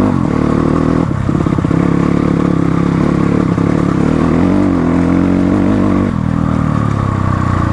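Motorcycle engine running under throttle on a rough off-road track; its pitch shifts a little and it eases off about six seconds in.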